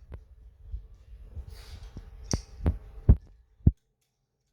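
A few sharp knocks and clicks as computer parts are handled while the CPU cooler and fan are fitted, the loudest about three seconds in. The sound then cuts out suddenly.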